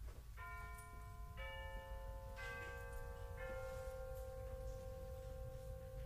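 A four-note chime, one note about every second, each note ringing on under the next. A steady low background rumble runs beneath it.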